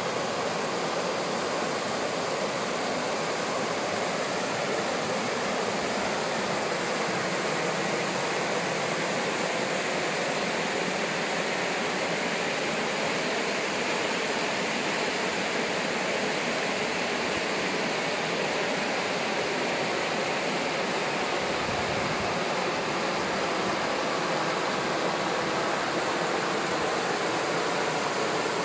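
River water rushing over a line of rocks in shallow rapids: a steady, even rush of water.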